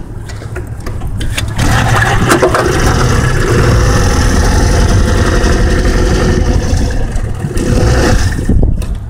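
A small boat's outboard motor running under way. It picks up about a second and a half in, holds steady, and eases off near the end.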